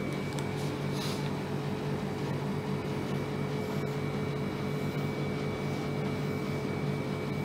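Steady machine-like room hum with a few held tones. Faint squeaks of a dry-erase marker drawing on a whiteboard come about a second in.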